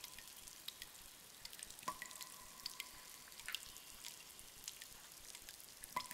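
Cave ambience: water drops falling and plinking, with many faint ticks. A louder drip comes about two seconds in and another near the end, each leaving a short ringing tone.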